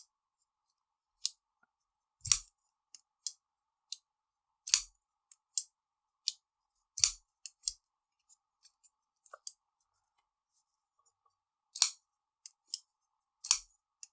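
Civivi Elementum II button-lock folding knife being flicked open and closed, the blade snapping into place with sharp metallic clicks at irregular intervals, some with a dull knock. The pivot has just been cleaned and oiled, and the action is quick.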